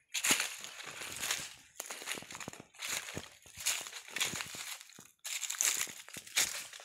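Footsteps crunching through dry fallen leaves and twigs, about one step a second, each step a crisp crackling crunch.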